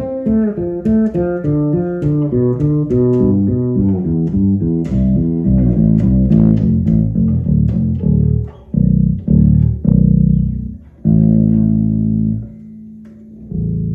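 Six-string bass playing a descending run of plucked notes in A Aeolian, about four a second. It slows into a few single low notes and then a held low note near the end.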